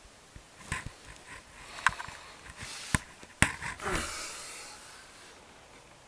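Rustling with several sharp clicks, the loudest three spread from about two to three and a half seconds in, dying away to a faint hiss after about four and a half seconds.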